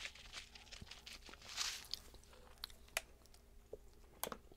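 Faint rustle and a few sharp clicks of a plastic popping-candy packet being handled, with a brief rustle about a second and a half in and the clicks near the end.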